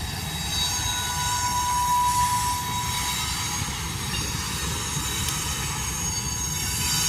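Freight train cars rolling past with a steady rumble, and thin high-pitched wheel squeals coming and going over it.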